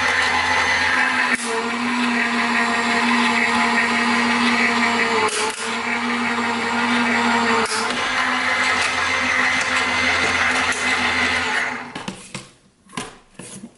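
Crafter's Companion Gemini Junior electronic die-cutting machine running steadily as its rollers draw a stack of acrylic plates and metal cutting dies through. A few sharp cracks come as the dies cut through the paper, which is normal. The motor stops near the end, followed by a few clicks and knocks as the plates are handled.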